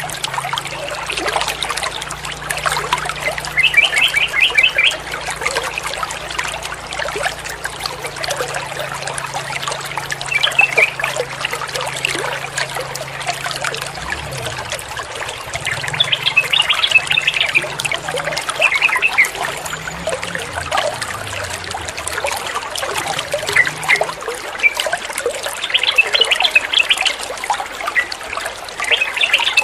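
Flowing water trickling steadily, with a yellow-vented bulbul singing short phrases several times over it, the clearest about four seconds in and again around seventeen and twenty-six seconds in.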